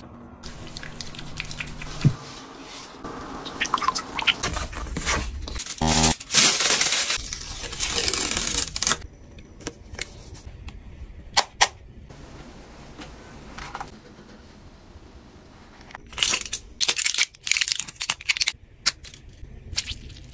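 Close-up handling sounds of hair- and skin-care products: scattered clicks and taps, with a longer stretch of rustling, crinkling noise about a third of the way in and another cluster of clicks near the end.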